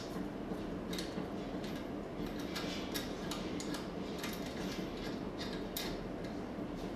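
Irregular small clicks and taps of hose fittings being handled and pushed onto the processor's flow cell as the working-liquid lines are reconnected, over a steady low hum.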